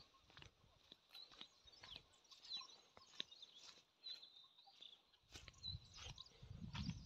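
Near silence: faint outdoor ambience with scattered faint, high bird chirps and a few soft clicks.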